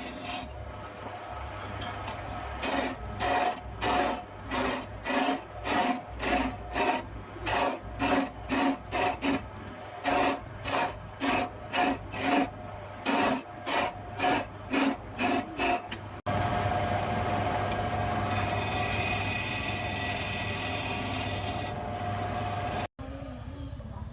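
Hand filing of a steel knife blade, with even back-and-forth strokes about two a second. After about 16 seconds it gives way abruptly to a steady whirring electric machine with a held tone.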